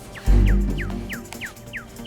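Background music: a deep bass hit about a quarter second in, fading over about a second, then a quick run of short falling blips a few times a second.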